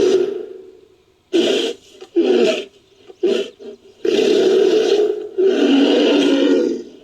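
Made-up Bigfoot vocalizations, a sound-effect blend of ape, bear and lion roars: a roar trailing off, a few short grunts, then two long roars back to back.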